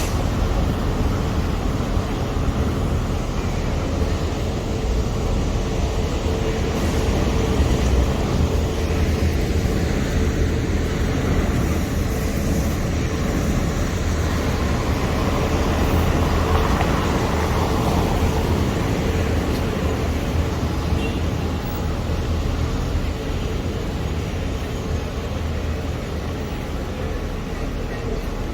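Steady low rumble of vehicle noise with a faint constant hum, unbroken and without distinct events.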